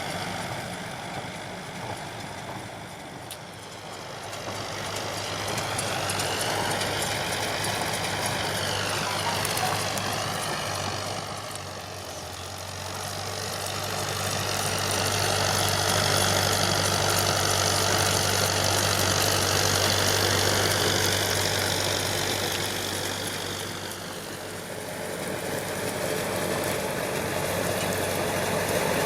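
John Deere 5720 tractor's diesel engine running steadily while pulling a round baler, growing louder and fading away again several times.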